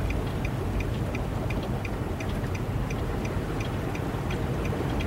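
Car cabin noise while driving slowly through flood water: a steady low engine and road rumble, with a faint, even ticking about three times a second.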